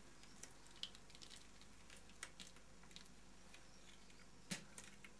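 Near silence broken by a few faint, scattered clicks and crackles, one a little louder about four and a half seconds in: a layered cast mould being lifted and peeled off its plastic master by hand.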